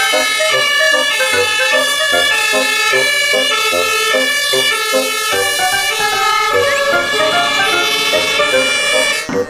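Toy fire engine's electronic siren sound: a loud run of steady tones that step between pitches several times a second, stopping just before the end.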